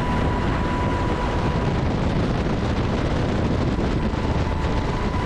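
Steady heavy machine noise with rushing wind and a thin, steady high whine over it, as from a large vehicle's engine running.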